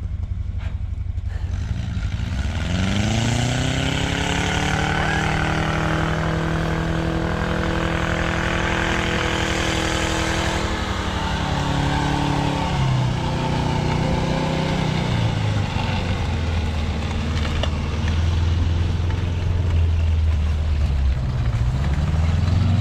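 Snowcat's engine pulling under load: it revs up about two seconds in, holds a steady high pitch, and drops back around eleven seconds in. A deeper, heavier low rumble takes over in the last several seconds as the tracked machine comes close.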